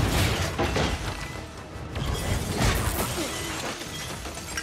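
Action-film fight soundtrack: a music score under a few loud crashes and impacts, with some shattering glass.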